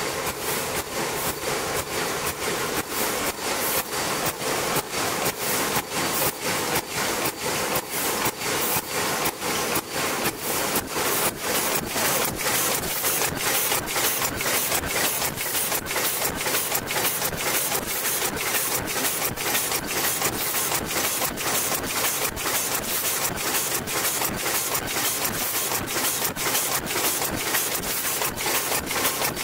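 NewTop FW125S paper bowl making machine running, its mechanism cycling in a fast, even rhythm of strokes, a few a second.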